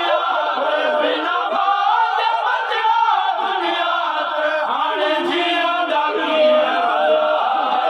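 A group of men chanting a noha, a Shia mourning lament, together without instruments, several voices overlapping.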